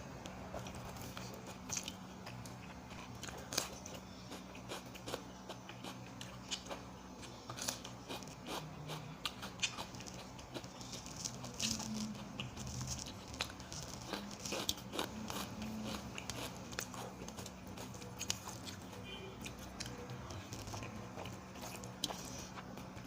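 Close-up eating sounds: a person chewing and biting food, with many irregular, crisp clicks and crunches. A faint, steady low hum runs underneath.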